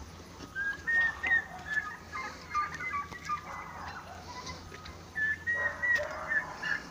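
Short, high-pitched animal calls in repeated runs: one bout in the first few seconds, a quieter gap, then another bout near the end.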